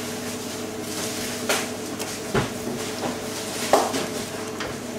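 Background noise of a busy commercial kitchen: a steady equipment hum with a few knocks and clinks of pots and utensils, the loudest about three-quarters of the way through.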